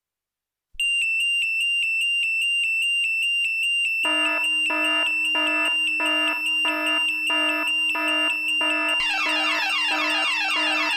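Electronic alarm-clock tone from a phone app, starting about a second in as a fast, evenly repeating high beep. Lower tones join about four seconds in and more again near nine seconds, so the alarm builds up in layers while keeping the same rhythm.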